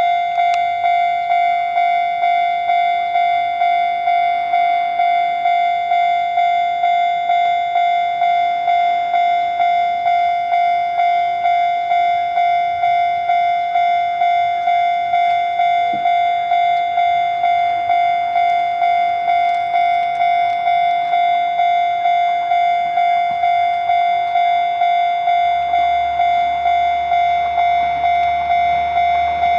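Japanese railway level-crossing warning bell ringing steadily, about one and a half strokes a second, each stroke a single ringing tone that fades before the next. In the last few seconds the low rumble of an approaching KiHa 11 diesel railcar joins in and grows louder.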